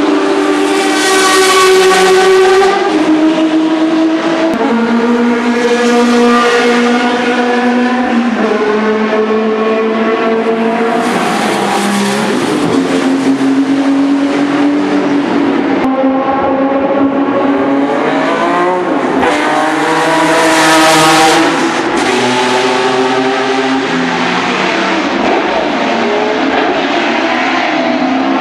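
Classic endurance racing cars passing one after another at full throttle. Each engine note steps down in pitch at every upshift and swells and fades as the cars go by.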